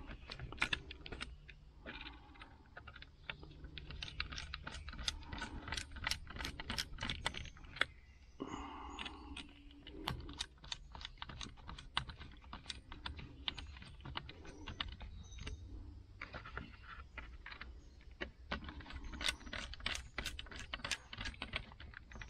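Screws being driven into a plastic steering-wheel switch housing with a small powered screwdriver: a long run of quick, light clicks and ticks, with a brief whir about eight and a half seconds in.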